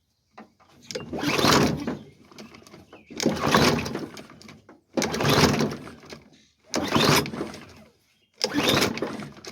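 Briggs & Stratton push-mower engine being pull-started five times, each recoil-cord pull cranking it over briefly without the engine catching. It will not fire despite a spark and a shot of brake cleaner, which the owner takes for a fuel issue.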